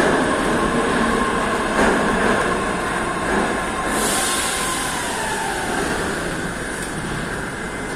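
Metro train pulling into the station and slowing to a stop: wheels rumble on the rails with a clack at a rail joint, a motor whine falls in pitch as it slows, and a hiss comes in about halfway through.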